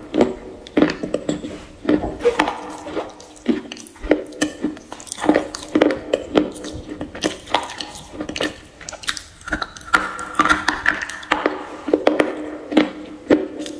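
Close-miked chewing of something hard and brittle with the mouth closed: irregular sharp crunches, about one or two a second.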